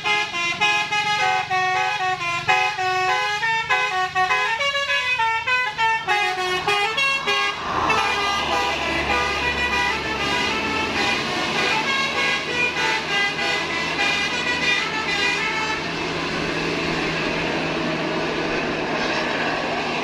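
Bus telolet horn, a Basuri musical horn, playing a quick melody of stepped notes as the bus approaches. From about eight seconds in the tune gives way to held horn tones over the engine and road noise of the bus passing close.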